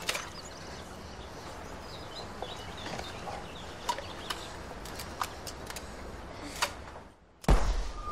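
Sharp metallic clicks as a flare pistol is handled and loaded, over outdoor ambience with faint bird calls. After a brief drop to near silence, the flare pistol fires with a loud bang about seven and a half seconds in.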